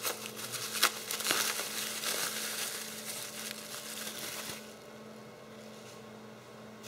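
Bubble wrap crinkling and crackling as it is pulled off a small metal bracket by hand, stopping after about four and a half seconds.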